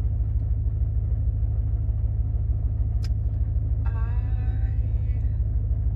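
Car exhaust running with a loud, steady low rumble, loud because the tailpipe bracket has worked loose.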